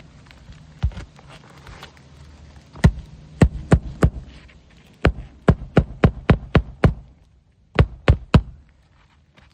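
Hammer driving nails into asphalt roof shingles: a single strike, then groups of sharp blows about three a second, roughly fifteen in all.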